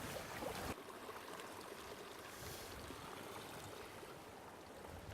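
Faint, steady rush of a small mountain stream's flowing water.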